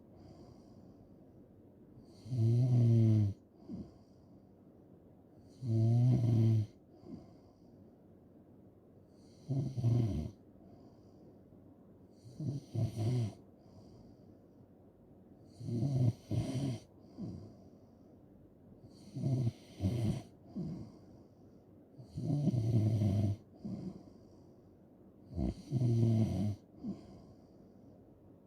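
A person snoring steadily in sleep: a low snore on each breath, about eight in all, one roughly every three and a half seconds, with quiet between them.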